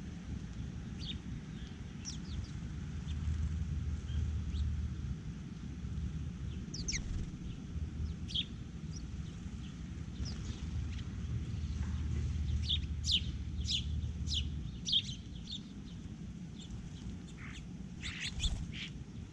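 Birds chirping: short, sharp downward chirps, scattered at first, then a quick run of them about two-thirds through and a few more near the end, over a steady low rumble.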